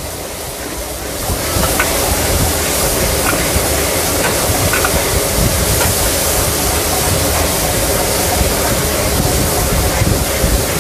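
Chopped garlic and fermented soybean paste sizzling in hot oil in a large steel wok, stirred with a metal ladle that scrapes and taps the pan now and then. The sizzle grows louder about a second in.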